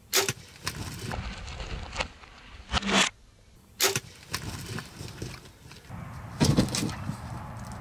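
Wild turkey gobblers flogging a jake decoy: a string of sudden wing-beat thumps and clattering strikes, some second or two apart, with scuffling in the dry stubble between.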